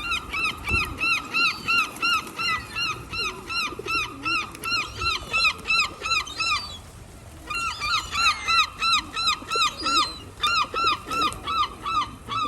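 A bird calling a rapid, even series of short pitched notes, about four a second, breaking off briefly twice.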